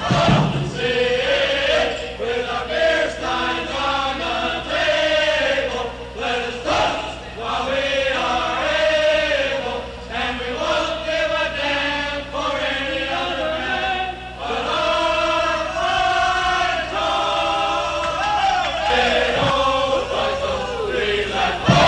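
Group of male voices singing a fraternity song together, choir-like.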